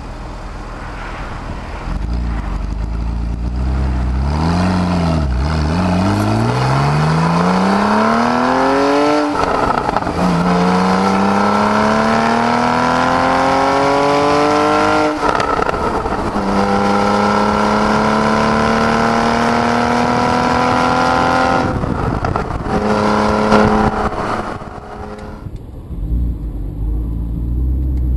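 Porsche 911 (991) Carrera flat-six engine through a stainless steel performance exhaust with its valves open, heard from beside the tailpipes: it accelerates hard in three rising pulls, each ending in an upshift with a quick drop in pitch. About twenty-two seconds in, the driver lifts off and the engine note falls away.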